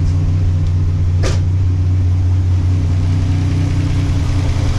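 1987 Buick Grand National's turbocharged 3.8-litre V6 idling steadily, freshly fitted with a larger 6766 turbo. One brief sharp noise cuts in about a second in.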